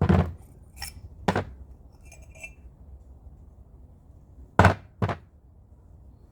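Parts of a disassembled Malysh vibration pump being handled and knocked against each other: a few sharp knocks and clinks in the first second and a half, light clinks a little later, and two more knocks about four and a half seconds in.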